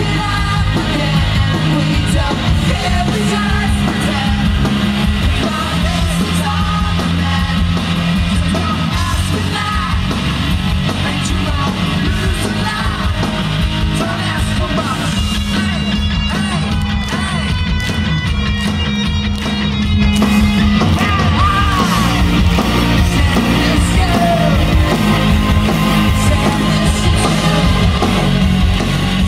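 Live rock band playing with a man singing lead, as heard from within the crowd; the band gets a little louder about two-thirds of the way through.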